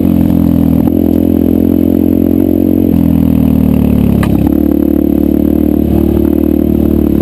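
Yamaha 125 dirt bike engine running under way, heard from the rider's helmet-mounted camera. About three seconds in the revs sag and fall. They pick back up just after a sharp knock at about four seconds.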